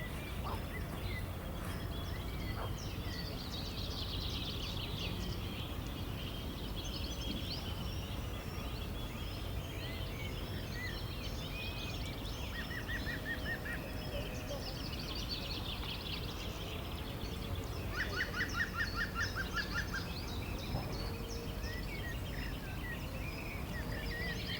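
River water flowing steadily with a low rushing, with several birds calling and chirping over it throughout. A quick trill of rapid notes comes about halfway through and a longer one about three-quarters of the way in.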